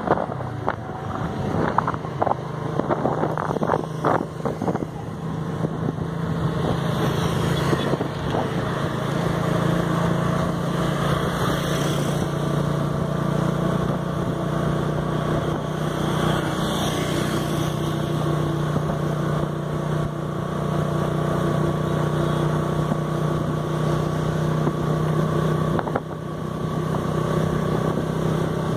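Motorcycle engine running steadily at an even cruising speed while riding, with a few brief rustling knocks in the first few seconds.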